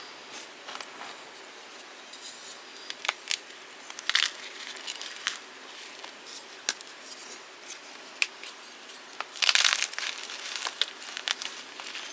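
Blocks of gym chalk being crushed, crumbling with irregular crisp cracks and crunches, and a longer, louder crunch about nine and a half seconds in.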